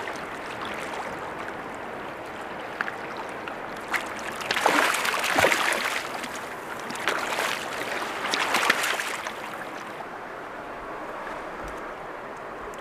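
Fast river water rushing steadily, with two bouts of loud splashing around the middle as a hooked golden mahseer thrashes at the surface while being brought in.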